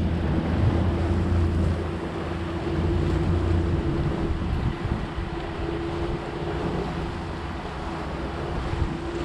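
Engine of a small wooden fishing boat running steadily underway, a constant hum with a held mid-pitched tone, mixed with wind on the microphone and the rush of water past the hull.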